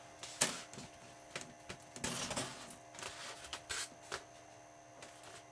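Light clicks and rubbing scrapes as a model airplane's motor pod is wiggled and pressed into place on the wing, a few separate knocks with a short scraping stretch about two seconds in.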